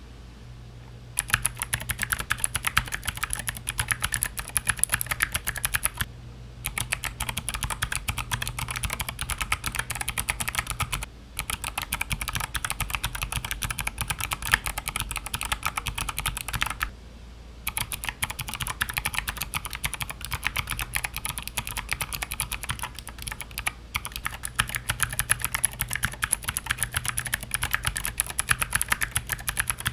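Clicky mechanical keyboard switches (Gateron Blue, Kailh Box Navy and Jade, NK Sherbet) typed on rapidly. There are several runs of dense, sharp clicking, each a few seconds long, with a short pause between runs. The last run is Gateron Blue switches.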